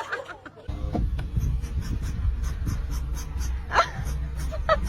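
A dog panting and breathing noisily over a steady low rumble, with two short rising cries near the end.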